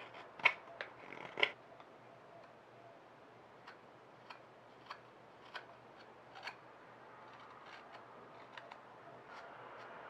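Carving knife slicing dried olivewood in final shaping cuts on a spoon: a few sharp cutting clicks in the first second and a half, the loudest about a second and a half in, then lighter scattered ticks every half second or so. A soft steady scraping comes in near the end.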